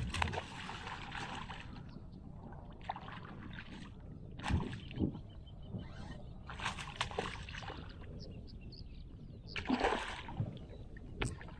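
Water splashing and sloshing in short irregular bursts, the loudest near the start and about ten seconds in.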